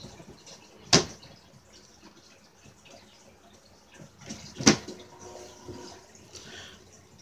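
Two sharp knocks, one about a second in and one a little past the middle, over faint rustling handling noise.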